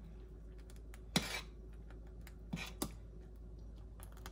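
A few light clicks and knocks of kitchenware: one about a second in, then two close together near the end, over a low steady background.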